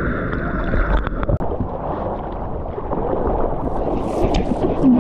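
Water rushing and splashing around a surfboard-mounted action camera as the board planes across a wave, with wind buffeting the microphone. The sound cuts out for an instant about a second and a half in.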